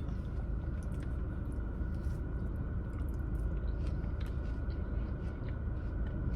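Faint chewing of a mouthful of burrito, with small scattered wet clicks, over a steady low background hum.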